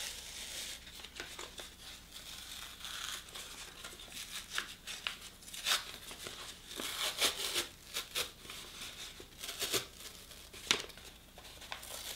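Plastic film being peeled slowly off a piece of carton board by hand, giving many small, irregular crackles and tearing sounds as the film and paper separate.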